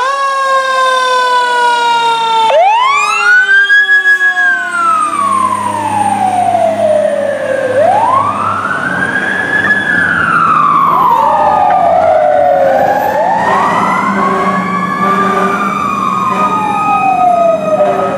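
Fire apparatus sirens wailing on an emergency run, two sirens overlapping. One rises and then slowly falls in long sweeps of about five seconds each. Diesel engine rumble runs underneath.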